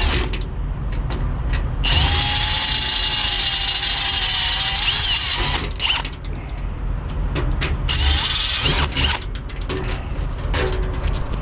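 Handheld power drill run in short bursts, its bit boring out corrosion from the rivet holes of a toolbox latch so that new rivets will seat, stopping and starting, with knocks and clatter between the runs.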